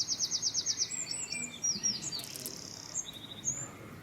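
Small songbirds chirping, high-pitched: a rapid trill of about a dozen notes in the first second, then short, falling chirps and another brief trill about three seconds in.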